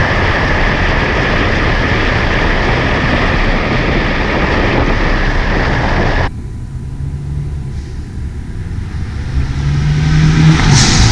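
Honda Civic Hatchback Sport under way: a loud, steady rush of road and wind noise with a steady whine. About six seconds in it cuts abruptly to a quieter engine hum that swells near the end, topped by a brief hiss.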